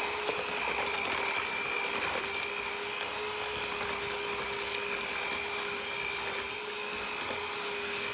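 Electric hand mixer running steadily, its beaters creaming butter and sugar in a bowl: a steady motor whine.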